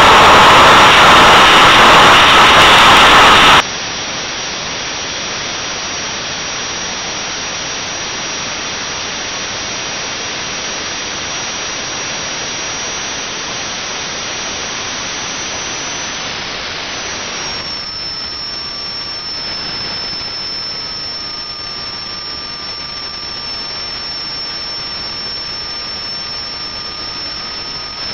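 Homemade turbojet engine running under load on a test stand: a loud, steady rush with a high turbine whine. About three and a half seconds in, the sound drops sharply in level and carries on as a steadier rush with the high whine. A second, lower whistle joins about 18 seconds in.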